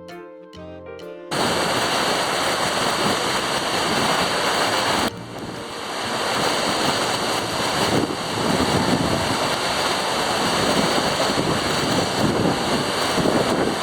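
A few music notes, then the loud, steady rush of a large waterfall cuts in about a second in. About five seconds in there is an abrupt cut to a slightly different rush of falling water.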